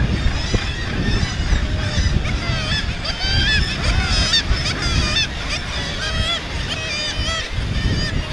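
Dense chorus of many gulls at a breeding cliff, screeching calls overlapping continuously, with a low rumble underneath.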